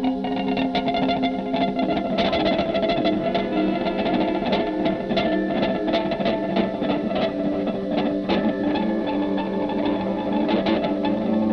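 Solo electric guitar played through effects: a quick run of picked notes ringing over held low notes.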